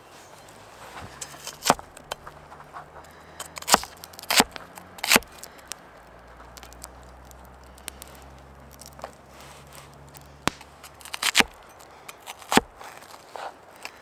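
Blade of a Cold Steel Viking battle axe, held by its head, chopping an onion on a plastic cutting board: sharp knocks as the edge cuts through and strikes the board, about eight in all, unevenly spaced with a lull in the middle.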